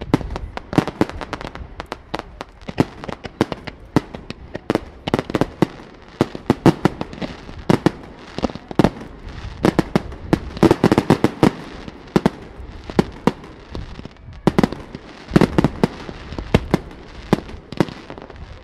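Fireworks display: aerial shells bursting in quick, irregular succession, often several sharp bangs a second, with denser volleys at times.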